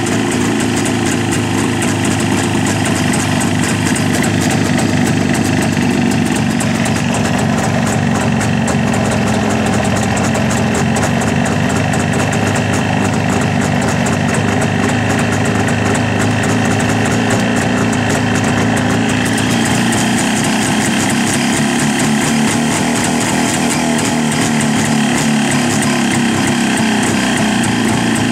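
Jawa 350 type 638's 343.5 cc two-stroke twin idling steadily, still cold and not yet warmed up. Its note shifts slightly about six seconds in.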